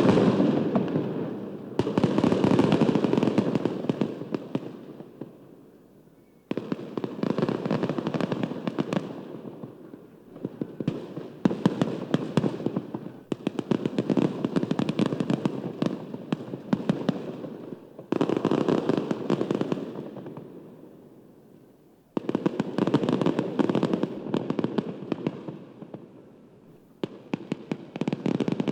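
A string of separate bursts of dense crackling, a new one every three to five seconds. Each starts suddenly and dies away over a few seconds.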